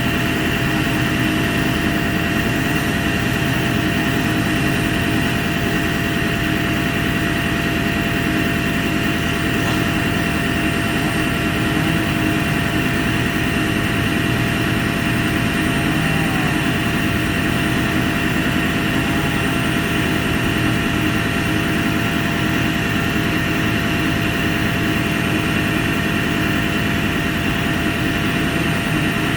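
A heavy engine running steadily at one constant speed, with an even, unchanging hum.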